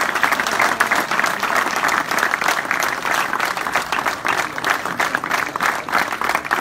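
A crowd applauding, with dense, steady clapping.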